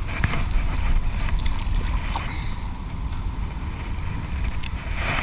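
Wind buffeting the camera microphone: a steady low rumble, with a few faint clicks.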